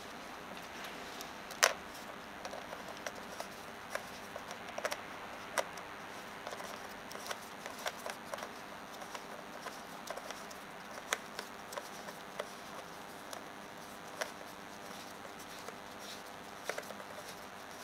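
Scattered light clicks and ticks of a Pentacon auto 50mm f/1.8 lens being handled in gloved hands, fitted to a camera and its rings turned. One sharper click comes about a second and a half in.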